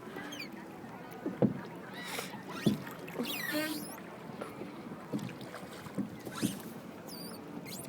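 Rowing boat being rowed: the oars knock in their oarlocks with a few short, irregular clunks between stretches of soft water noise.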